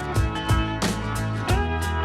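Background music with sustained bass notes and drum hits.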